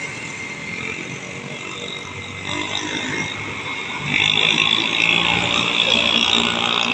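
Highway traffic: a bus's engine fading as it drives away, then a car passing close about four seconds in, its engine and tyre noise louder.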